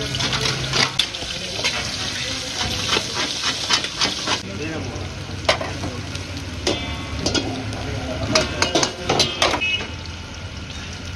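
Mutton pieces sizzling in hot oil in an iron karahi, with a metal spatula scraping and clinking against the wok as they are stirred. The sizzle is strongest in the first few seconds; later the clinks ring briefly.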